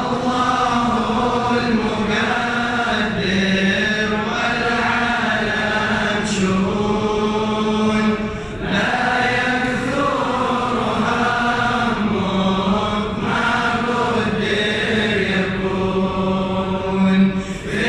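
A large group of men chanting a devotional Arabic poem aloud in unison, a steady melodic recitation. It breaks briefly about halfway through, between lines.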